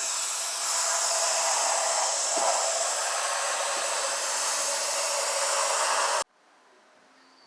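Aerosol spray can of rusty metal primer spraying in one long, steady hiss that cuts off suddenly about six seconds in.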